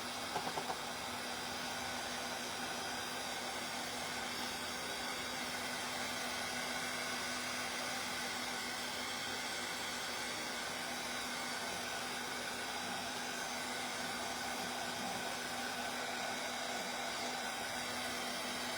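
Handheld electric hot-air dryer blowing steadily with an even motor hum, drying fresh acrylic paint on a small rooster figure. A few small clicks come about half a second in.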